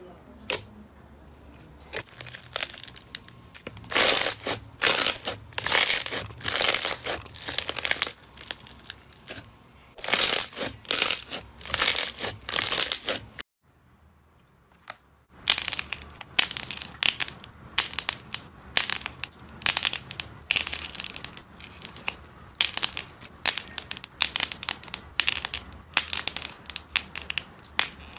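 Hands squeezing and pressing crunchy slime, giving repeated crackling crunches. In the first half it is a tub of white granular slime. After a brief silent gap midway, small crunchy slime balls with a crisp shell are squashed between the fingers, crackling in quicker runs.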